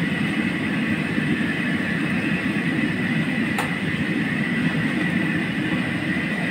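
Commercial gas wok burner running steadily under a wok of hot oil, with the oil bubbling hard around crabs deep-frying in it. A single short clink about halfway through.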